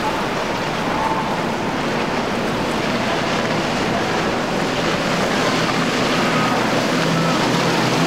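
Four Mercury Racing 400 hp outboards on a Midnight Express powerboat running at speed as it passes, under the rush of its wake and spray, with wind noise on the microphone. A low engine drone strengthens near the end.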